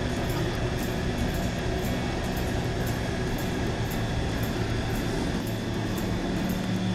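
Steady machinery drone with a low hum, and a faint high tick about twice a second.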